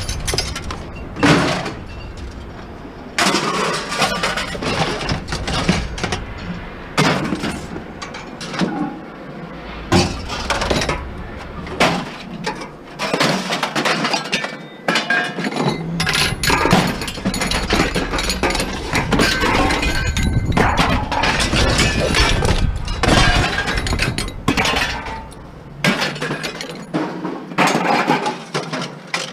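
Repeated clanking and clattering of hard objects being handled, knocked together and dropped, with a glassy, metallic clink to some of the knocks.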